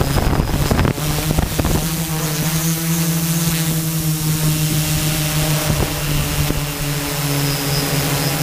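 Electric motors and propellers of a camera drone humming steadily, heard from its own on-board microphone, the pitch shifting slightly as it adjusts its hover. Rumbling gusts of wind hit the microphone in the first second or so.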